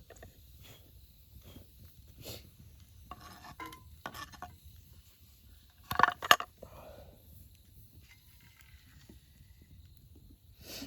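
Metal camp cookware and utensils knocking and clinking, with two sharp ringing clinks about six seconds in.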